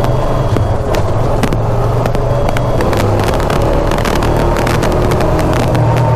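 ATV engine running steadily while riding a trail, with frequent sharp clicks and knocks throughout.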